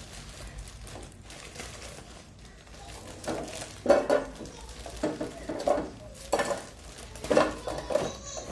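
Frozen potato fries being emptied from a plastic bag into an air fryer basket: the bag crinkles and the frozen pieces knock against the basket. It comes as a string of uneven clatters starting about three seconds in.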